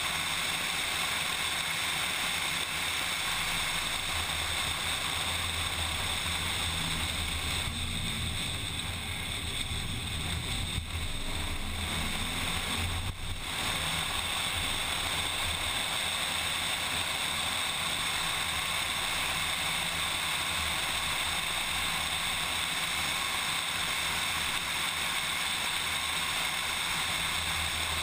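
Race car at track speed heard from a camera mounted outside on the hood: steady wind rush over the microphone with the engine running underneath. About a third of the way in the wind noise eases and the engine comes forward for a few seconds, with a brief break near the middle as the car takes a corner, then the wind rush builds again.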